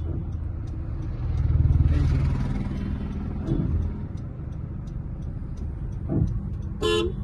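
Car engine and road rumble heard from inside the cabin as the car creeps slowly through a turn, swelling briefly about two seconds in. A short vehicle horn toot comes near the end.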